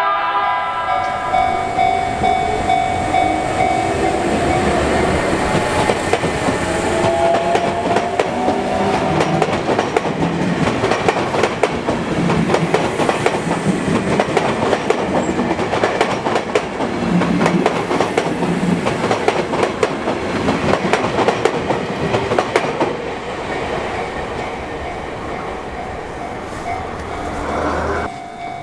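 A Sotetsu electric train's horn sounds briefly at the very start. The train then passes over the level crossing with a rising whine as it gathers speed, followed by a long run of wheels clattering over the rail joints that fades after about twenty seconds.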